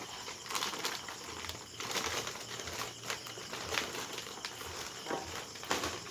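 Plastic snack packaging rustling and crinkling in an irregular run of short rustles and light knocks as packs are handled.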